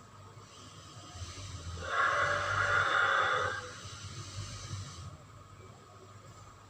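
Cryolophosaurus sound effect: one long, breathy, hissing exhale that swells from about half a second in, is loudest in the middle and dies away about five seconds in.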